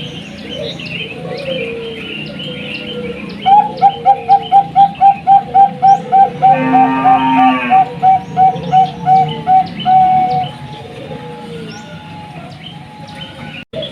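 Zebra dove of the Bangkok song type (perkutut bangkok) singing a long run of about twenty short, evenly repeated cooing notes, roughly three a second, starting a few seconds in and stopping near the end. Small birds chirp steadily in the background.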